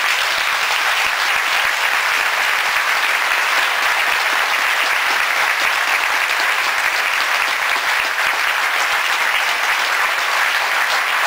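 Large audience applauding: loud, dense, steady clapping that starts suddenly and keeps an even level.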